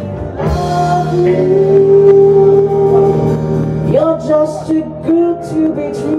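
Live band music: a male vocalist holds one long sustained note over guitar and bass, then sings a few shorter notes.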